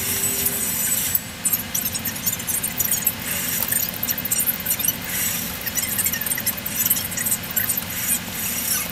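Newly hatched chicken chicks peeping inside an egg incubator, many quick high chirps overlapping, over a steady low hum.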